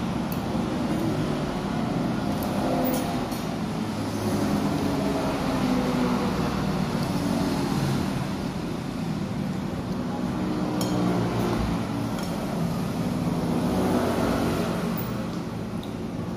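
Steady road traffic noise with engines passing and drifting in and out, coming through an open window. A few light clicks of cutlery on a plate sound over it.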